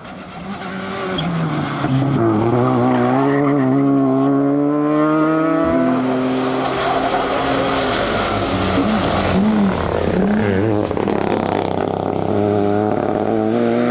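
Rally car engine under hard acceleration. The pitch climbs and then drops sharply at gear changes and lifts, and it wavers up and down near the middle before rising again near the end.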